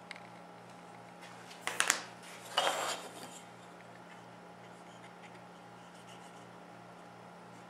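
Two sharp taps and then a brief clatter, about two to three seconds in, as small wooden parts and a glue bottle are handled on a workbench, over a steady low electrical hum.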